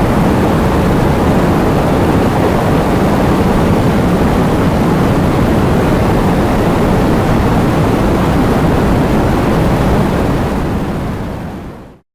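Heavy rain driven by wind, a dense steady roar of noise. It fades out over the last two seconds.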